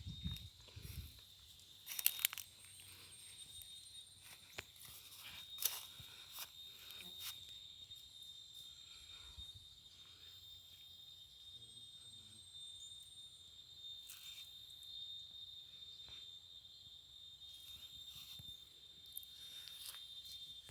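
Steady high-pitched insect trill in the background, with scattered crackles and crunches. The loudest crunches come about two seconds and six seconds in.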